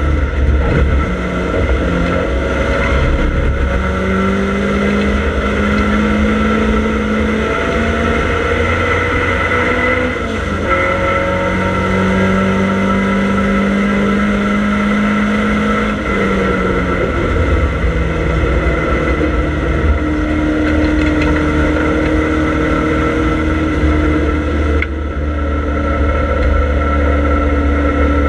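Triumph Dolomite Sprint race car's 2-litre slant-four engine under hard acceleration, heard from inside the cabin. The revs climb through the gears and fall back at the shifts, about ten and sixteen seconds in, over a steady rumble of road and wind noise.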